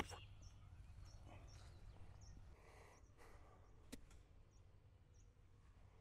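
Golf clubs striking the ball on chip shots: a sharp click right at the start and another about four seconds in. Faint, short, high bird chirps repeat throughout over a low steady rumble.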